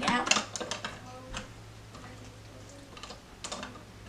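Screwdriver with a flathead bit turning a screw in a light-switch cover plate: a quick run of clicks in the first second, then fewer, fainter clicks.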